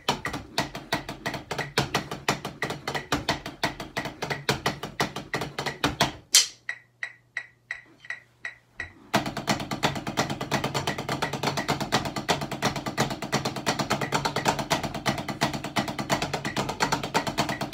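Drumsticks playing a tenor-drum (quads) practice pad set: fast, even strokes tapping on rubber pads. About six seconds in there is one sharp loud accent followed by a few sparser, fading strokes, then from about nine seconds a dense run of very rapid strokes.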